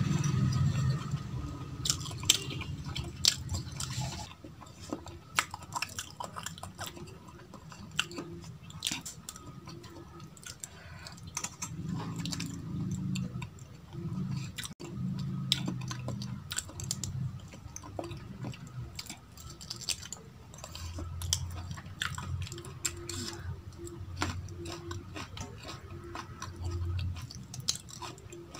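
Close-up chewing and wet mouth sounds of someone eating rice, dal and vegetable curries by hand, with frequent sharp clicks and light scraping of fingers mixing food on a steel plate.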